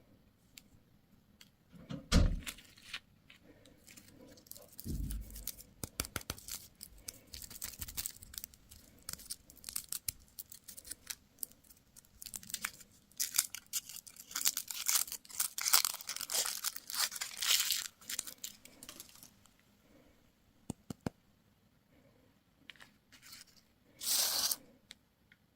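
Candy wrapper being torn open and crinkled in dense crackling runs, with low knocks about two and five seconds in and a short burst of crinkling near the end.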